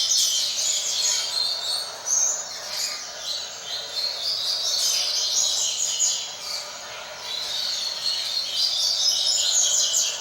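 Coleiro (double-collared seedeater) singing the tui-tui 'fibra' song type: fast, high-pitched chirping phrases in several runs separated by short pauses.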